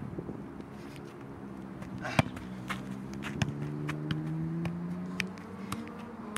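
Soccer ball being juggled, sharp taps of the ball on foot and thigh at an irregular pace, the loudest about two seconds in. Under them a low engine drone slowly shifts in pitch and dies away near the end.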